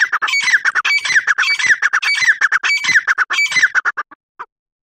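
Grey francolin calling: a loud, rapid run of harsh notes with a falling stroke about twice a second, stopping about four seconds in.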